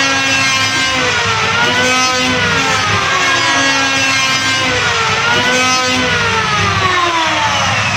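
Electric hand planer running loud, its motor whine dipping and climbing back in pitch every couple of seconds.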